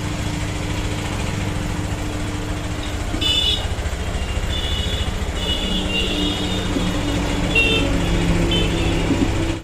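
Honda Stunner's 125 cc single-cylinder engine idling steadily after a top-end rebuild with a new piston and valves. Short high-pitched sounds come and go over it from about three seconds in.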